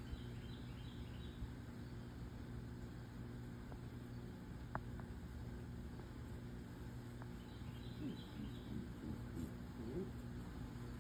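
A steady low machine hum, with a few quick high bird chirps about half a second in and again about seven and a half seconds in.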